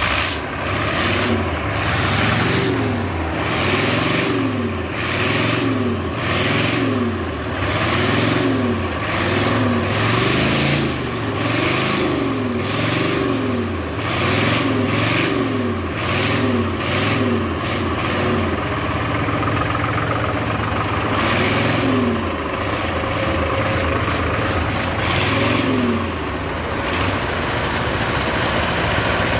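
A vintage vehicle's engine revved over and over, its pitch rising and falling about once a second. It then runs more steadily, with a few last revs near the end.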